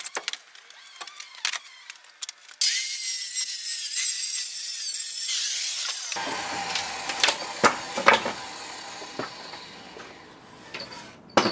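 Loose wooden pallet boards knocking and clattering as they are lifted off and set down, with a loud knock near the end. In the middle there are a few seconds of steady high hiss that start and stop abruptly.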